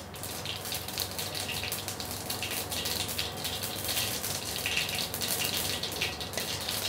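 Mustard seeds spluttering in hot coconut oil in a small frying pan: a steady sizzle dotted with many quick crackling pops. The popping seeds are the cue in tempering that the oil is ready for the shallots.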